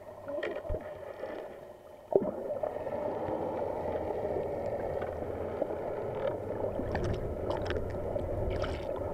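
Muffled underwater water noise picked up by a submerged camera: a sharp knock about two seconds in, then a steady dull rush, with a few faint clicks near the end.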